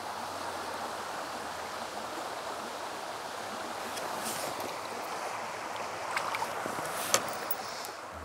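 Shallow stream flowing and rippling steadily over a gravel bed, with a few light clicks in the second half, the sharpest near the end.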